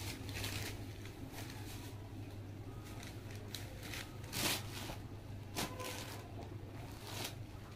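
A saree being lifted, gathered and folded by hand: several brief cloth rustles over a steady low hum.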